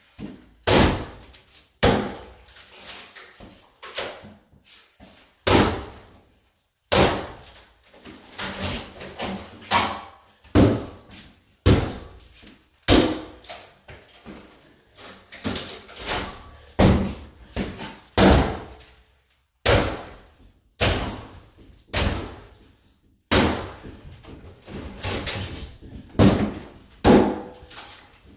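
Repeated heavy knocks and bangs on a wooden cabinet being knocked apart by hand, roughly one blow a second at an uneven pace, each ringing out briefly.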